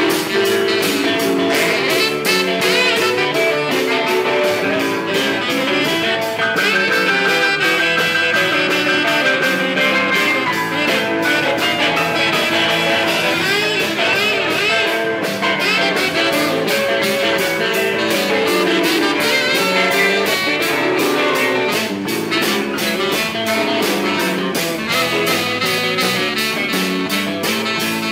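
Live blues band playing: electric guitar and keyboard over a steady drum-kit beat, with a saxophone near the end.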